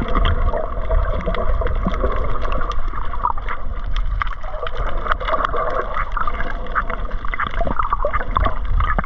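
Underwater sound picked up by a submerged camera: a steady muffled rumble and water hiss, with many small clicks and crackles scattered throughout.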